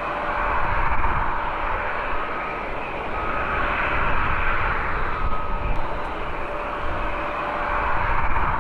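Airbus A330-243 jet airliner's engines passing on arrival: a steady, loud rushing jet roar that swells and eases a few times, with a faint whine in it.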